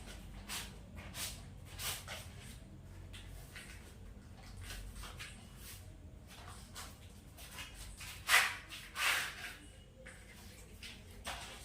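Light handling noises: scattered soft clicks and rustles, with two louder, brief rustling scrapes about eight and nine seconds in.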